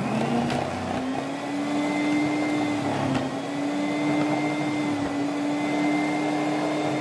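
Walita food processor's electric motor running with its grating disc, shredding potato chunks pressed down the feed chute. A steady hum that rises in pitch as the motor comes up to speed, dips briefly about three seconds in, with a couple of short knocks.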